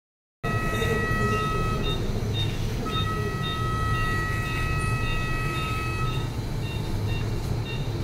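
Operating-theatre electronic equipment sounding over a steady low hum: long held electronic tones that stop and restart, and short beeps repeating about twice a second.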